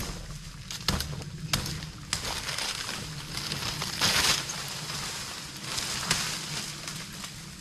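Machete chopping at cassava stalks: several sharp knocks in the first two seconds, and a louder rustling crash of leaves and stems about four seconds in.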